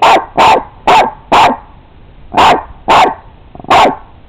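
Small white terrier barking sharply at a rat that has gone under a garden shed: four quick barks, then three more spaced further apart.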